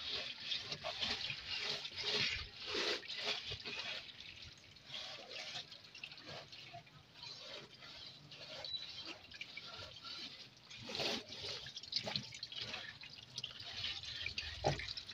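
Water dripping and trickling from a freshly washed air cooler, with scattered light knocks and clicks as its body is handled.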